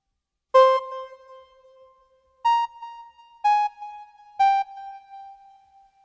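Four electronic chime notes, each struck and ringing out, each lower in pitch than the last, roughly a second apart. They sound like an electric piano.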